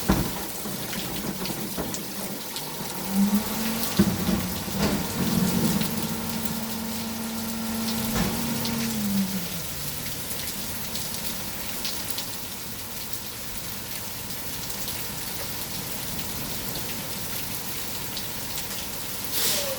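Heavy rain and hail coming down hard, a dense steady hiss with scattered sharper hits of hailstones striking. A low steady hum joins about three seconds in and fades out near the ten-second mark.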